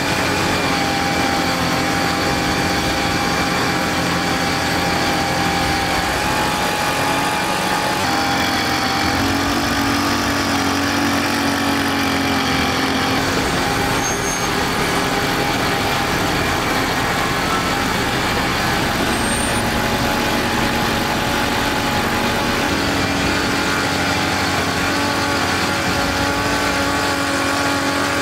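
Heavy lorry engines running steadily with street traffic noise, a continuous drone with a few steady engine tones.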